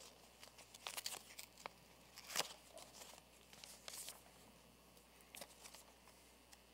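Faint crinkling and tearing of paper in scattered short crackles, the loudest a little over two seconds in.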